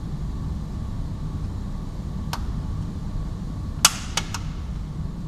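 Renault Clio 4 plastic interior trim clips snapping loose as the trim is levered off with a thin flat screwdriver: a sharp click a little over two seconds in, then a loud snap about a second and a half later followed quickly by two more clicks. A steady low rumble lies underneath.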